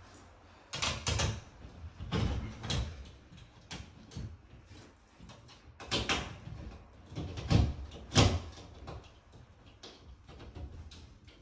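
Irregular knocks, clunks and scrapes from hands fitting a metal washbasin mounting plate and its PER pipe fittings into an opening in plasterboard. Two sharper knocks come about two-thirds of the way through.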